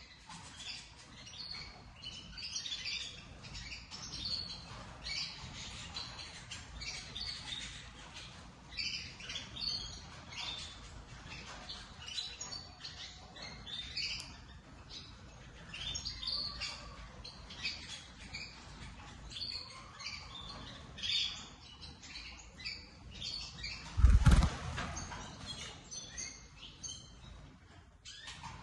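Domestic canary chirping and twittering in quick, continuous runs of short high notes. A brief loud thump cuts in about three-quarters of the way through.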